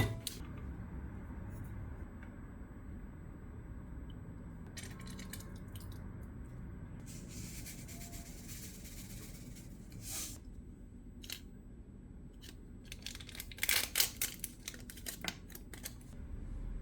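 Quiet handling sounds: scattered clicks and taps, a hiss lasting about two seconds in the middle, and a quick flurry of clicks and rustling near the end.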